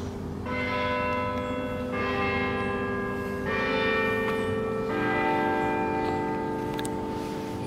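Bells chiming: four strikes of different pitch about a second and a half apart, each ringing on and overlapping the next.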